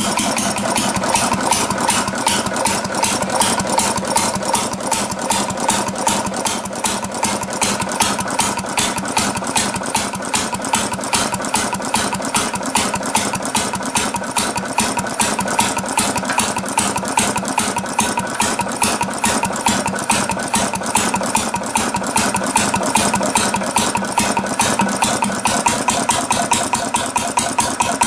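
1937 Tate experimental compound-compression two-stroke engine running at a steady speed, firing in an even, rapid beat.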